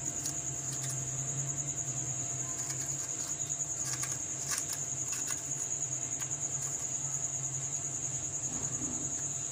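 Steady high-pitched trill of a cricket over a low hum, with a few faint scrapes and clicks of a spoon scooping the seeds out of a peeled round gourd (tinda).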